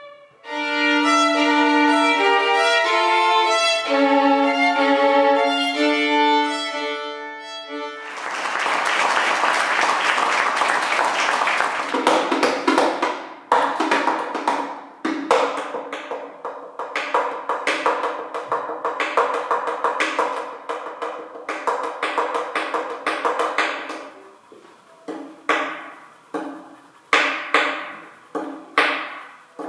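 Solo violin, unaccompanied. For about eight seconds it plays a bowed melody of clear held notes, then a dense, loud flurry of rapid notes. From about 13 s it switches to pizzicato, plucked and strummed chords and single notes that ring briefly and die away, spaced further apart near the end.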